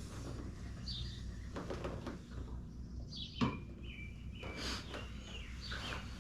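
Small birds chirping in short, falling notes every second or two over a steady low hum, with one sharp click about three and a half seconds in.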